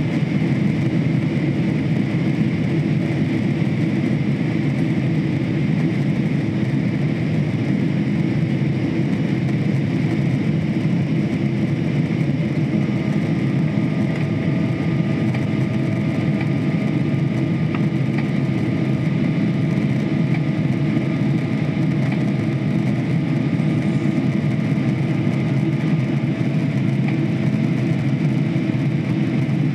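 Cabin noise of a Boeing 777-300ER climbing after takeoff, heard from a window seat beside the wing: a steady loud rush of airflow and drone from its GE90-115B turbofan engines. About twelve seconds in, faint steady high tones join the drone.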